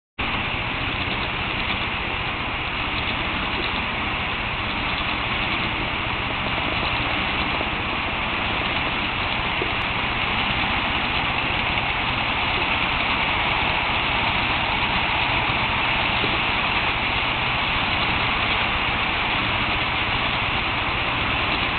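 HO scale model freight train running on the layout: a steady whirring rumble of its wheels and locomotive motor on the track, getting a little louder as it comes nearer.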